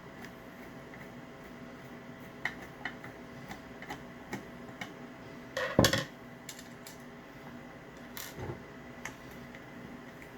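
Small metal parts of an Onity hotel door lock being handled: scattered light clicks and clinks, with a louder clatter about halfway through and another a couple of seconds later.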